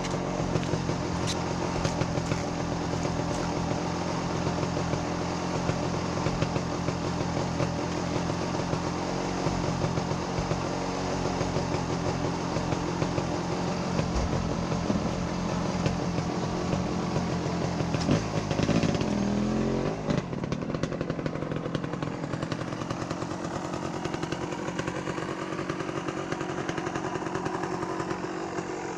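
Dirt bike engine running steadily at idle, with one rev that rises and falls about 18 seconds in. After that the deep engine note drops away and a lighter engine sound carries on.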